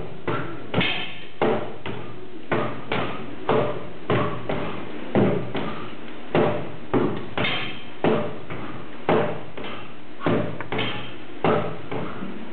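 Sword and shield repeatedly striking a stack of old car tyres, about one and a half hard thuds a second in an uneven rhythm, over a steady low hum.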